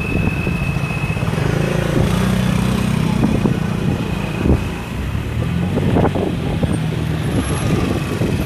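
Road vehicle engines running at low revs close by, a steady low rumble with a few short knocks.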